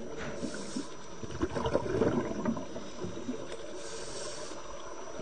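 A diver's breathing gear heard underwater: two hissing breaths about three and a half seconds apart, with bubbling and crackling between them.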